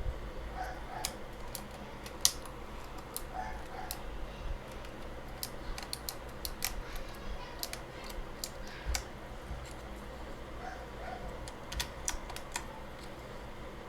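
Plastic keycaps being pushed back onto a computer keyboard's switches: irregular sharp clicks as each one snaps into place, the loudest a little over two seconds in.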